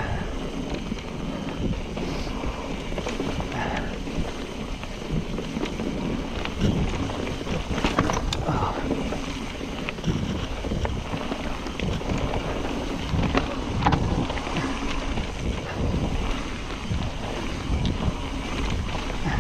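Trek Fuel EX 9.8 29 mountain bike riding down a wet, rooty and rocky trail. Wind rumbles steadily on the action camera's microphone, with tyre noise and scattered clicks and knocks from the bike over the roots and rocks.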